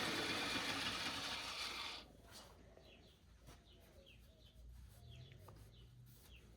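A steady hissing noise that cuts off about two seconds in, then small birds chirping faintly in short, falling chirps, several times over.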